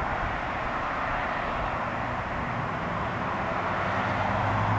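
Stadler GTW diesel light rail train running, a steady rushing rumble with a low engine drone that grows stronger near the end.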